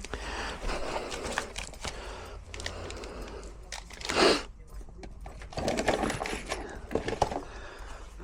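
Irregular metallic clicks and rattles from a door lock and its handle being worked by hand, with a brief louder scraping rush about four seconds in.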